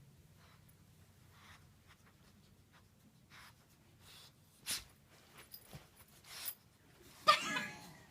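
Boxer puppy scuffling and scratching around a squeaky dog toy, a string of faint short scrapes, then one sudden loud, short sound with a pitched edge about seven seconds in.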